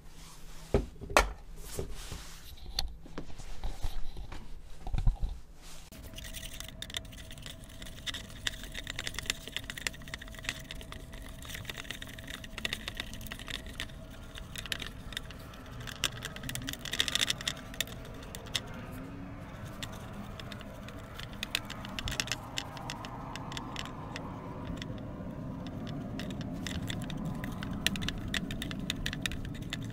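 Wooden spoon stirring and scraping a potassium nitrate and sugar mixture around a stainless steel pot, a steady dense run of small scrapes and clicks. The first few seconds hold a few separate sharp knocks as the pot is handled.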